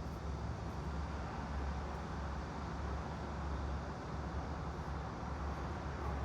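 Steady ambient background noise with a deep low hum underneath, with a few faint, light ticks now and then.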